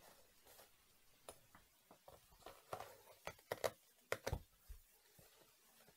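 Faint rustling and small sharp clicks and creaks from hands handling a sneaker split down the front, prising the cut upper apart, with a run of louder clicks in the middle.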